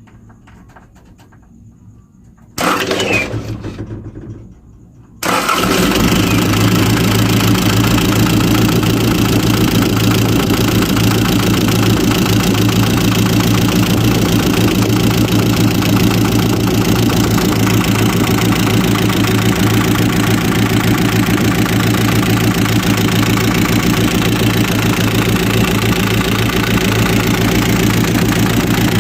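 Hino truck diesel engine being started: a loud burst about two and a half seconds in that fades away, then the engine catches about five seconds in and idles steadily. This is a test run after the No. 4 injector nozzle was retightened to stop it leaking at its O-ring, to check for knocking.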